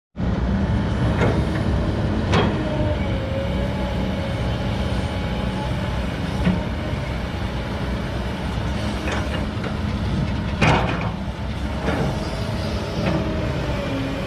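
Kobelco hydraulic excavator's diesel engine running steadily while digging and loading soil, with a wavering whine over it and several sharp knocks, the loudest about ten and a half seconds in.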